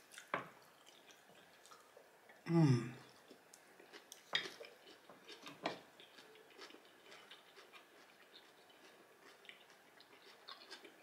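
A fork clicking and scraping against a glass bowl of chopped salad, with soft chewing between the clicks. About two and a half seconds in comes a short, low hum from the eater's voice, falling in pitch.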